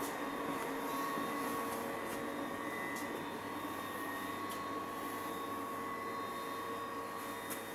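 A steady mechanical hum with a thin, steady whine in it, broken by a few light clicks.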